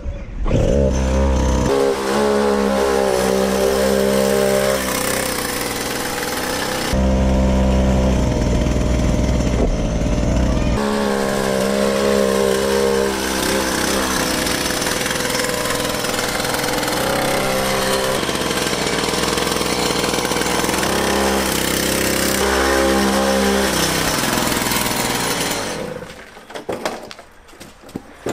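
Two-stroke petrol cut-off saw engine fitted to a ride-on toy car, running hard while the car drives. Its pitch changes abruptly a few times, and it falls away near the end.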